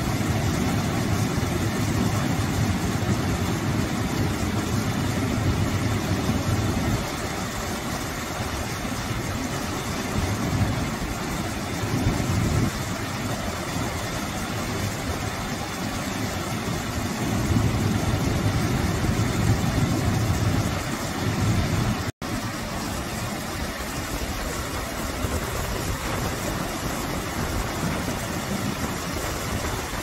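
Small waterfall pouring over a low rock ledge into a pool: a steady rushing and splashing of water with a deep low rumble. The sound cuts out for an instant about two-thirds of the way in.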